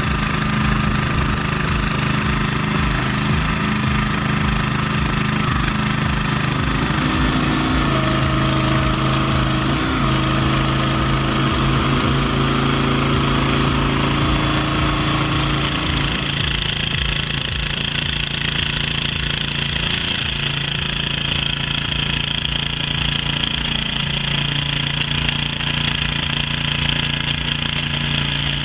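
Heavy forestry machinery with its engine running steadily under load; the sound changes about two-thirds of the way through.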